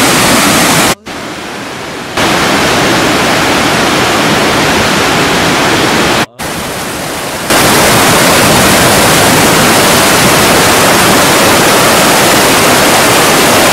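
Kali Gandaki river rushing in loud, steady rapids over rocks. The sound drops away briefly about a second in and again about six seconds in.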